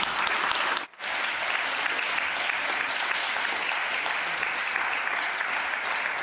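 Applause: many people clapping steadily at the close of a speech, with a brief break about a second in.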